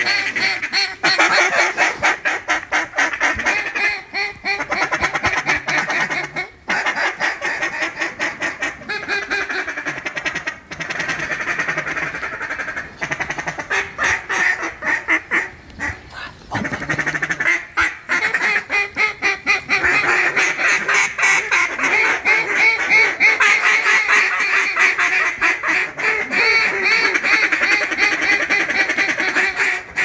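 Fast, continuous mallard quacking and chatter, many quacks overlapping. It runs with a few short breaks and is busiest in the second half.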